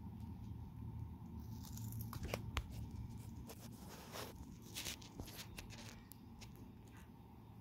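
A wood turtle biting and tearing at a bok choy leaf: scattered small crunching snaps and tearing, mostly in the middle of the stretch, over a low steady hum.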